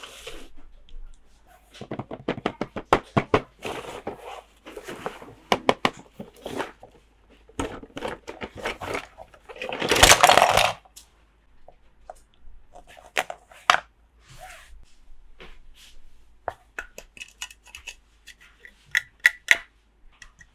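Small plastic toy pieces handled, set down and clicked together in quick irregular clicks and taps, with short rustles and one longer, louder rustling scrape about ten seconds in.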